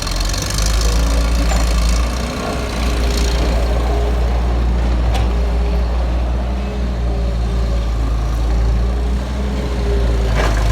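Diesel engine of heavy construction machinery running steadily under load, with a wavering whine over it and a few sharp knocks.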